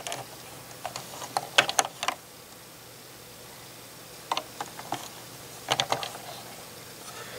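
LEGO plastic pieces clicking and tapping as a small minifigure chair is slid out from under a desk and pushed back in by hand. The clicks come in three short bunches: a little after a second in, around four and a half seconds, and near six seconds.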